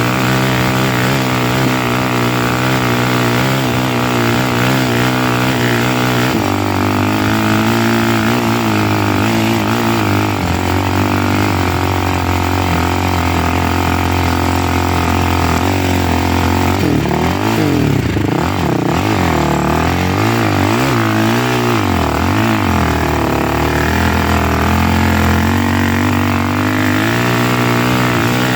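A vehicle engine running steadily under way, its pitch shifting from time to time and wavering up and down for a few seconds past the middle.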